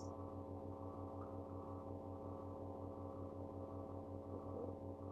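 Steady electrical hum with a stack of overtones and a fast, even pulsing in its lowest note, typical of mains hum or ground-loop buzz in the sound system.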